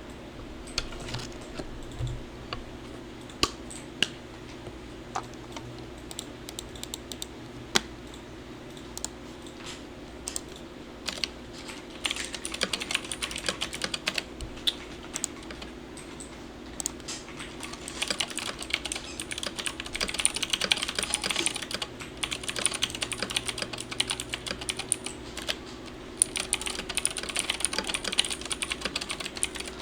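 Typing on a 1stPlayer Lang MK8 mechanical keyboard with clicky Gateron blue and Outemu green switches. It starts as slow, separate keystrokes, then turns into fast typing in runs of rapid clicks about twelve, eighteen and twenty-six seconds in.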